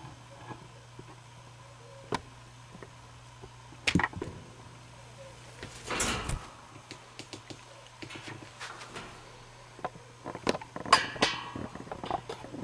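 Scattered knocks and clicks, then a cluster of rattling clatter in the last two seconds as a ring-tailed lemur grips and climbs a wire pen. There is a brief rustle of cloth about six seconds in.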